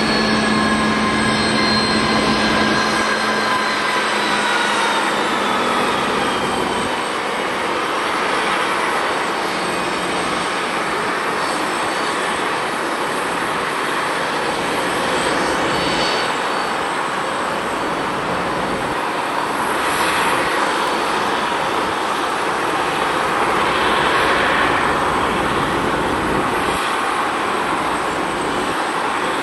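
Turbofan engines of a taxiing Embraer 190 airliner. A jet whine falls in pitch over the first few seconds, then gives way to a steady rushing sound that swells a few times.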